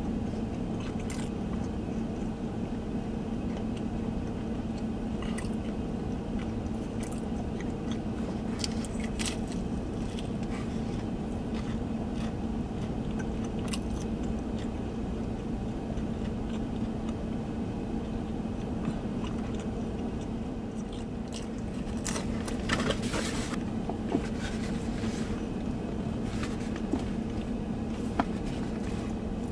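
Close-up chewing and biting of thin-crust pizza, with scattered crisp crunches and a denser run of bites about 22 seconds in. A steady low hum fills the car cabin underneath.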